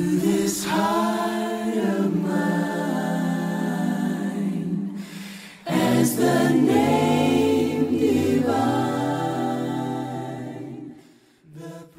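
Unaccompanied choir singing held chords in two long phrases, with a short break about halfway and a dip near the end.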